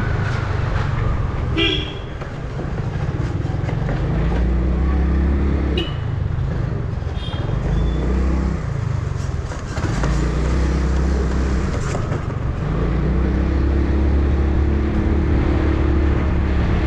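Motorcycle engine running under the rider in street traffic, its pitch shifting a few times as it speeds up and slows. Vehicle horns honk briefly about two seconds in and again around six to seven seconds.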